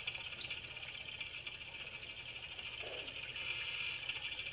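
A steady, high-pitched chirring chorus of small animals in the background, made of fine rapid pulses. A brief, faint lower sound comes about three seconds in.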